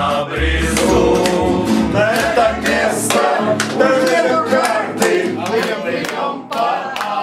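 A group singing the closing line of a Russian bard song to acoustic guitar. The guitar stops about three seconds in, and hand clapping joins the singing.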